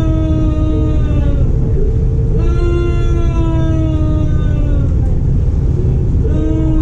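An MTR East Rail Line R-Train electric multiple unit running, with a steady low rumble from the wheels on the track. Over it, an electric whine from the traction equipment slides slowly down in pitch, breaks off, and starts again higher about twice.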